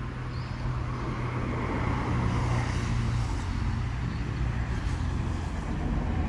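Road traffic: a motor vehicle passing on the highway, a low engine hum with tyre noise that grows louder over the first couple of seconds and then holds.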